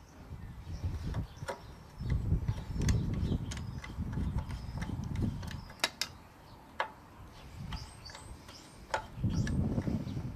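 Scattered small clicks and taps as the plastic air filter cover is fitted back onto a Briggs & Stratton mower engine and its screw is turned with a screwdriver.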